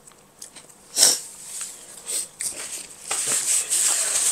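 Eating sounds close to a clip-on microphone: chewing and small mouth clicks, with one sharp click about a second in, like a spoon against a plastic container. A papery rustle starts about three seconds in, from a paper napkin being handled.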